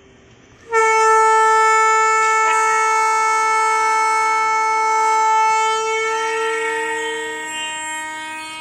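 Train horn blown in one long blast of about seven seconds: a loud multi-note chord that starts suddenly, holds steady, then shifts to a higher note and fades a little near the end.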